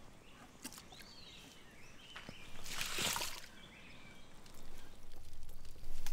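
Village outdoor ambience with small birds chirping now and then, and a brief noisy swish about three seconds in.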